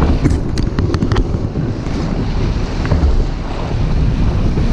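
Heavy wind buffeting the microphone of a camera on a moving jet ski, over the rush of sea water. A quick run of sharp slaps or knocks comes in the first second, with another about three seconds in.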